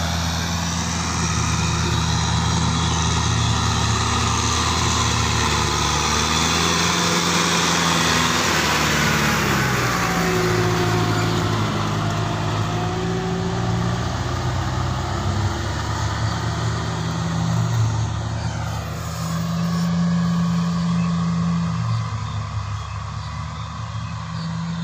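Kubota tractor's diesel engine running steadily under load while ploughing, its engine speed shifting up and down a few times.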